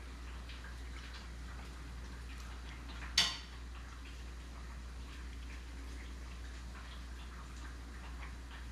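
A steady low hum with faint scattered ticks, and one sharp clink of tableware about three seconds in.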